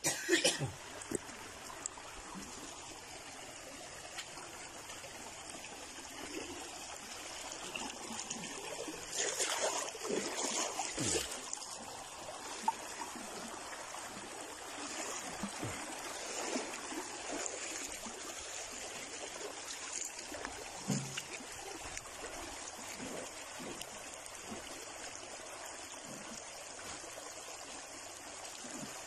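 Shallow stream trickling steadily over stones, with a few knocks and scrapes about a third of the way in.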